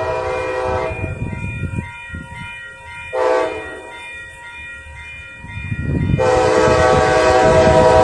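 Approaching train's chord horn sounding the grade-crossing pattern: a long blast at the start, a short one about three seconds in, and a long, louder one from about six seconds in, over a low rumble of the oncoming train. A steady electronic ringing, likely the crossing bells, carries on between the blasts.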